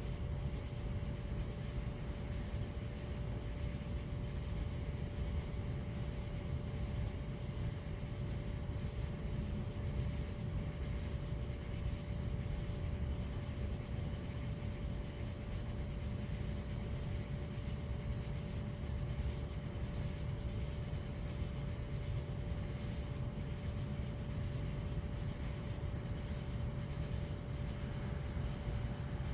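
Steady low outdoor rumble with no thunderclaps, under an insect's fast, even, high-pitched chirping that runs on without a break.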